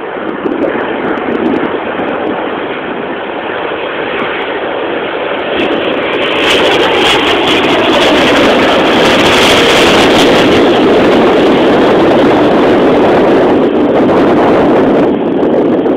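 Jet noise from an Airbus A380's four turbofan engines on low landing approach. It is a loud rushing noise that builds, is at its loudest and hissiest as the airliner passes overhead from about six seconds in, and stays loud as it flies on over the runway.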